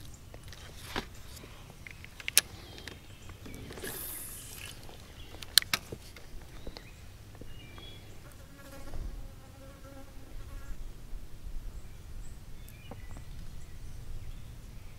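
A fly buzzing close by, loudest for a couple of seconds past the middle, with a few sharp clicks early on from hands working the rod and spinning reel.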